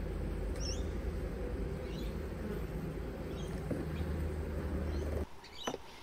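Honeybees of an opened hive buzzing in a steady, dense hum, with a few faint bird chirps over it; the hum cuts off suddenly about five seconds in.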